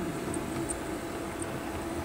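O gauge Dapol Terrier 0-6-0T model locomotive running under DC power: a steady motor and gear hum with the wheels rolling on the rails.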